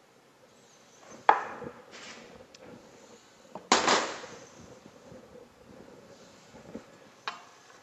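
Chef's knife cutting through roasted cauliflower and knocking on a wooden cutting board, the loudest knock about a second in, then a white ceramic baking dish set down on the counter with a clatter that rings briefly, and a smaller knock near the end.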